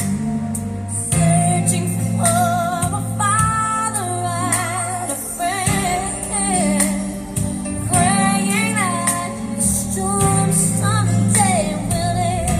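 Gospel song with a female lead singing drawn-out, wavering vocal runs over a steady bass line, played back through a W-King D9 Bluetooth speaker.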